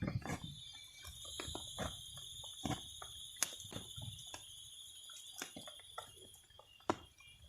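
Scattered clicks and knocks of utensils and camp cookware being handled, over a steady high-pitched insect drone that stops near the end.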